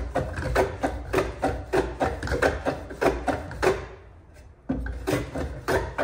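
Record 020C compass plane pushed in quick short strokes along the convex curve of a wooden workpiece, the sole and blade rasping over the wood about twice a second. The strokes pause briefly about four seconds in while the plane is lifted, then start again.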